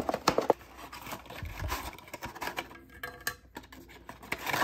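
Rummaging in a product box: scraping and rubbing of cardboard and packaging being handled, with a few sharp clicks near the start.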